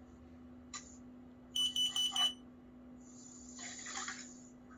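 Kidde Trusense smoke and carbon monoxide alarm's horn, covered, giving a quick run of high beeps about a second and a half in, part of its carbon monoxide warning cycle. A soft hiss follows near the end.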